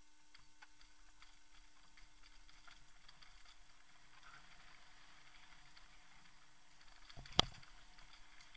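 Faint rattling and light clicks of a fat bike rolling fast down a rough dirt trail, with one sharp knock about seven seconds in.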